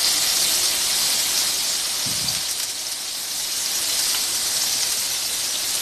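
Marinated paneer cubes shallow-frying in hot oil in a nonstick pan: a steady sizzle.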